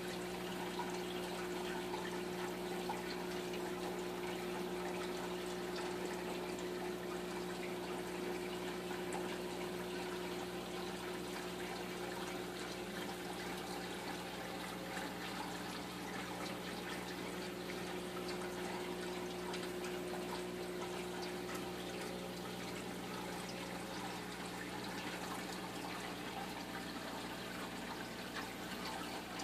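Reef aquarium's water circulation: steady trickling, pouring water with a steady low hum underneath.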